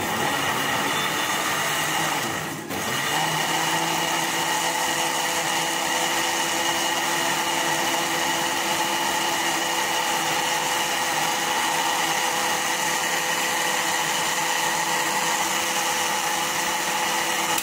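Electric countertop blender motor running steadily, blending milk, cream, bananas and strawberries into a smoothie. The motor dips briefly about two and a half seconds in, then runs on evenly.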